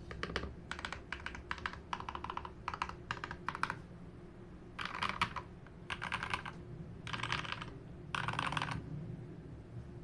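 Modded Royal Kludge RK G68 mechanical keyboard being typed on in quick runs of keystrokes with short pauses between. In the second half the keystrokes come in four denser clusters, each about half a second to a second long.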